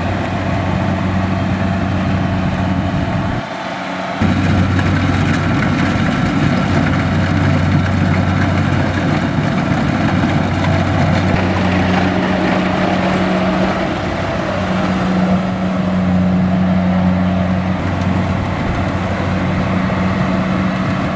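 Diesel engine of a Kubota DC-70X rice combine harvester running steadily, with a brief dip in level about four seconds in.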